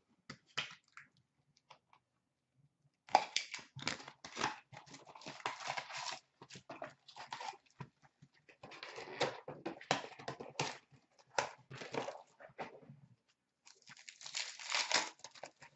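A box of hockey card packs being torn open and its foil-wrapped packs handled: crackling, tearing and rustling of wrapper and cardboard in several bursts, with sharp clicks.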